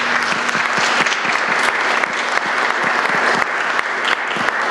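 Congregation applauding, a steady patter of many hands clapping.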